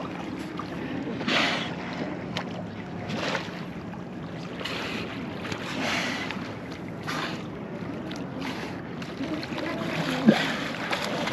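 Seaside ambience: wind on the microphone and bay water washing, swelling and fading every few seconds, with one sharp click about ten seconds in.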